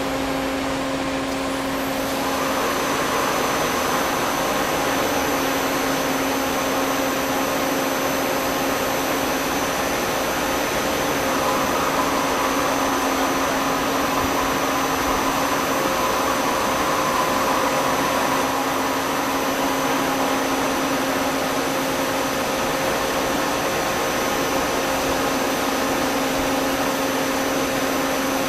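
MTI RM-1 friction stir welding machine running steadily during a steel butt weld: a continuous mechanical whir with a low hum, and a thin high whine that joins about two seconds in.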